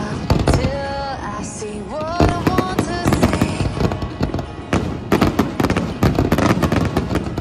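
Aerial fireworks bursting over a song with a singing voice. The singing is plain in the first few seconds; from about halfway on it gives way to dense, rapid bangs and crackling from the shells.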